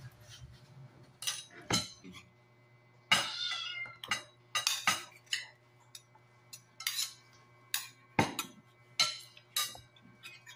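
Spoons and forks clinking and scraping against a stainless steel bowl and glass plates during a meal, a dozen or so sharp strikes with the steel bowl ringing on after them. One longer sliding sound comes a little after three seconds in.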